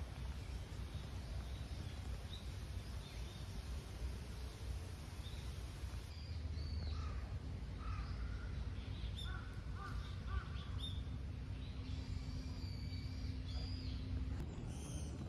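Crows cawing several times, starting about six seconds in, over a steady low outdoor rumble.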